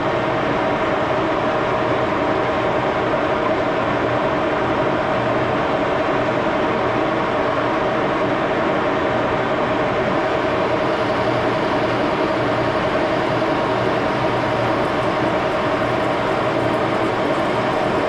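Axelson gear-head engine lathe running steadily with its chuck turning: a constant mechanical hum with several steady held tones in it.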